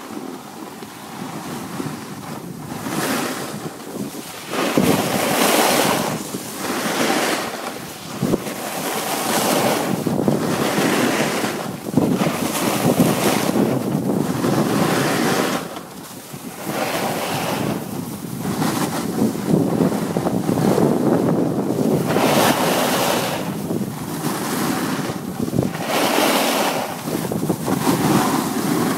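Wind buffeting the microphone while skis scrape over packed snow, a rushing noise that swells and fades every second or two.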